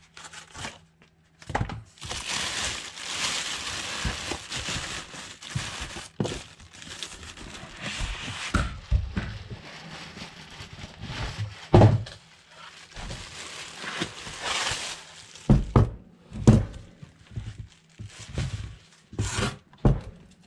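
Plastic wrapping rustling and tearing as it is pulled off a boxed battery, then several thunks as the heavy battery and box are handled and the battery is set down on a bench.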